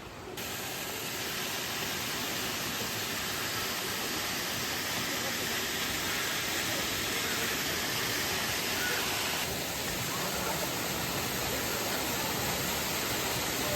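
Rushing water as a dense, steady hiss, with a slight change in tone about nine and a half seconds in.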